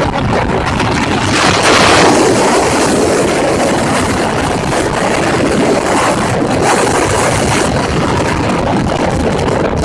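Steady rush of wind and road noise from a moving motorcycle, with wind buffeting the microphone.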